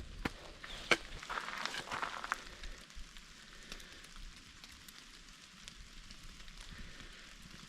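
Rain falling, a steady fine hiss, with a few sharp clicks in the first couple of seconds.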